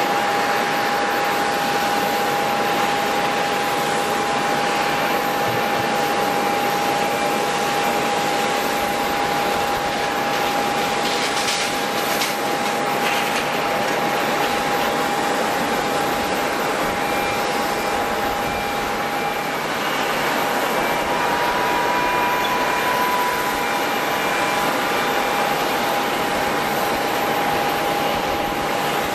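Airliner jet engines running: a steady hiss with a constant whine held at one pitch.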